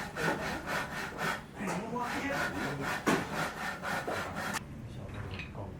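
Rapid, rhythmic back-and-forth rasping strokes, about four a second, stopping about four and a half seconds in.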